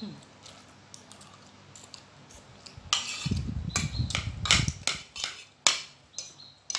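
Metal fork and spoon clinking and scraping on a ceramic plate, with a run of sharp clinks in the second half and a dull low rumble under them for a couple of seconds.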